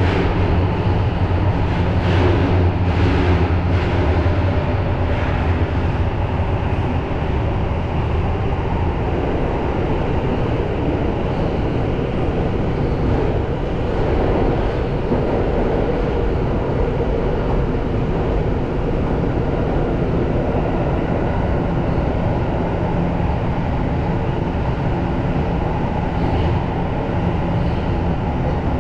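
Tokyo Metro Marunouchi Line subway train running through a tunnel: a steady rumble of wheels and running gear. A low hum is strong for the first several seconds, then eases into an even rumble.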